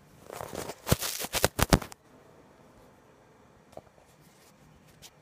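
Handling noise on a phone's microphone: rustling and a quick run of sharp knocks and taps for about two seconds as the phone is gripped and moved, then a couple of faint clicks.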